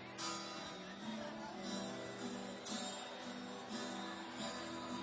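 Live music: an acoustic guitar strumming chords as the introduction to a song.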